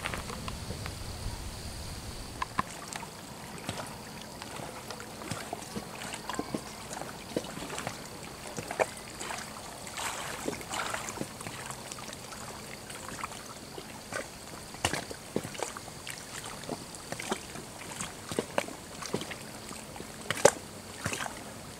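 Small waves lapping at the lake's edge: irregular soft splashes and slaps of water over a steady hiss.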